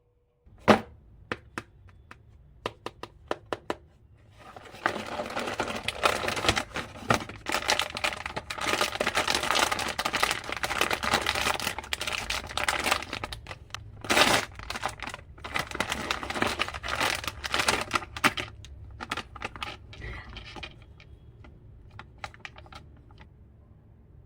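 A few sharp clicks, then a long stretch of crinkling and tearing of wrapping as a package is opened. The crinkling fades away near the end.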